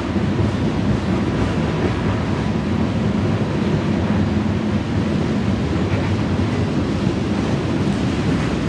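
Freight train cars rolling past, a steady rumble of steel wheels on rail, with a faint thin high whine.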